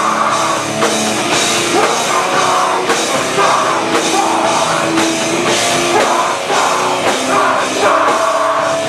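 Live rock band playing loud and distorted, with drum kit, guitars and vocals.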